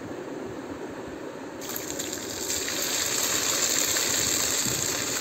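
Ground garlic paste sizzling in hot oil with curry leaves. The sizzle is steady, and about a second and a half in it grows louder and brighter.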